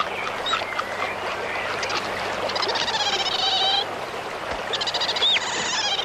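Birds calling: wavering, trilled calls a second or so long, repeated twice, and short whistles that rise and then drop, over a steady rushing background.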